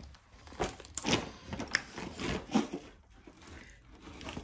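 Irregular rustling and light knocks of shopping items and their packaging being handled.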